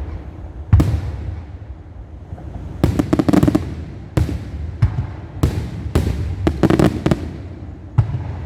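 A fireworks display: sharp booms of aerial shells bursting, with two clusters of rapid crackling pops, over a steady low rumble.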